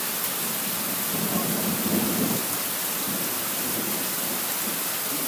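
Steady rain pouring down onto the open water of a bay, an even hiss of countless drops striking the surface.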